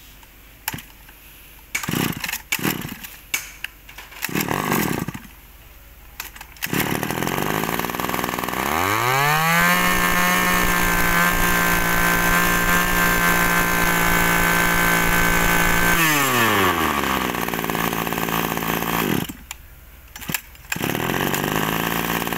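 Small two-stroke engine of a garden power tool: a few short sputters first, then it runs, revs up about nine seconds in, holds a steady high rev for about six seconds, and drops back to idle around sixteen seconds in.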